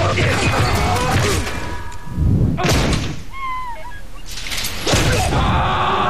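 A string of heavy thuds and crashes, the loudest about two seconds in and another just before five seconds.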